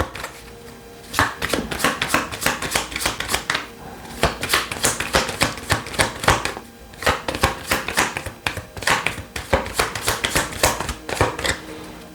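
Tarot deck being shuffled by hand: quick runs of card slaps and flicks, broken by short pauses about a second in, about four seconds in and near seven seconds in.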